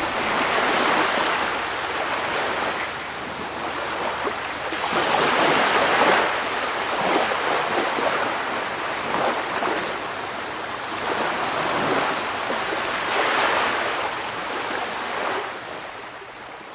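Ocean surf: waves breaking and washing in, swelling and easing every few seconds, then fading out near the end.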